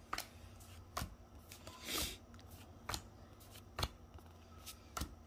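Pokémon trading cards being flipped one by one through a hand-held stack, each card giving a short crisp snap about once a second, with a softer swish of card sliding over card about two seconds in.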